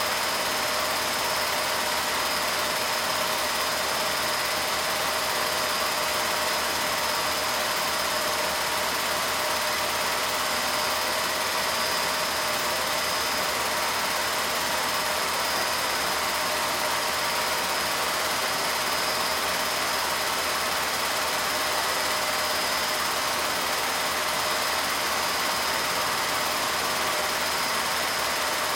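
Film projector running: a steady mechanical whir with hiss and a few constant tones, unchanging throughout.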